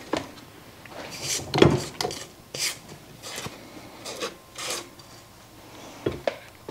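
Scattered clicks, knocks and scrapes as a tilt-head KitchenAid stand mixer is handled: its head is released and tilted up, lifting the dough-coated flat beater out of the stainless steel bowl. The loudest knock comes about one and a half seconds in.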